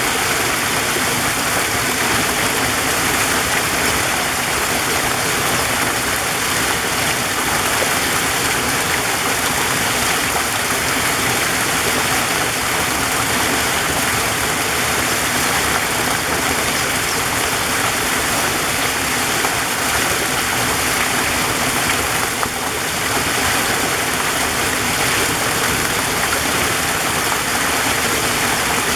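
Waterfall rushing steadily, an even roar of falling water with no break.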